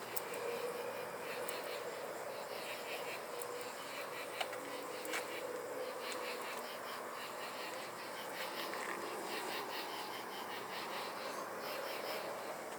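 Loud chorus of night insects chirping in fast, evenly pulsed trills, with a faint steady tone underneath for the first half.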